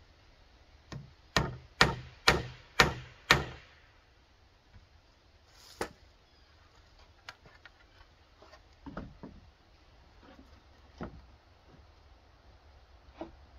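Claw hammer driving a nail through a rough-sawn wooden board, six sharp blows about two a second. Then a few scattered, lighter knocks and taps of wood being handled and set in place.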